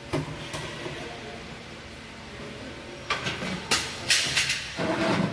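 Sheet-metal switchgear cabinet door being handled: a run of sharp metallic clicks and clanks about three seconds in, after a couple of single clicks at the start.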